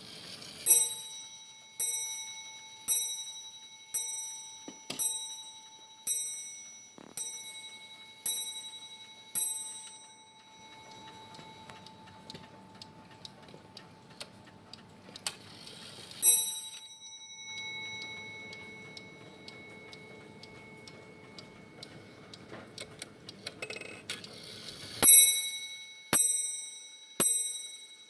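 Dutch wall clock striking its bell on top: nine strokes about a second apart, each ringing out. One lone stroke follows some seconds later, and another run of strokes begins near the end, with the movement ticking quietly in between.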